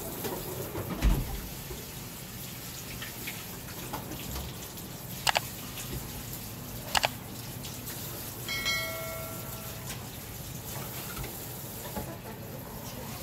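Tap water running steadily into a washbasin while hands are washed. A thump comes about a second in, two sharp clicks come midway, and a short ringing tone sounds near the end.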